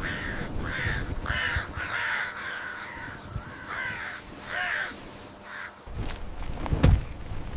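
A bird calling again and again, about six or seven short calls over five seconds, then a couple of sharp knocks near the end.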